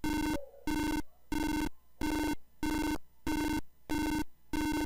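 Ugly-sounding buzzy electronic beeps from the simulated Arduino fake bomb's speaker, about one and a half a second, each about a third of a second long. They are the arming countdown beeps while the bomb arms, and they stop near the end.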